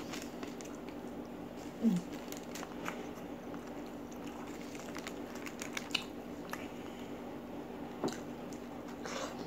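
Close-up eating sounds: chewing, wet mouth clicks and smacks as chicken in green chili sambal and raw vegetables are eaten by hand, with a bite into a raw tomato near the end. A short falling 'mm' comes about two seconds in, over a steady low hum.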